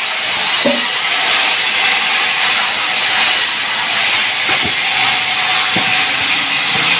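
Sawmill saw running through sengon logs: a steady, loud hiss-like noise, with a few light knocks.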